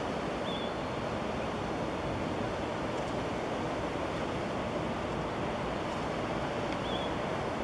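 Steady, even wash of city traffic noise. A faint short high chirp sounds about half a second in and again near the end.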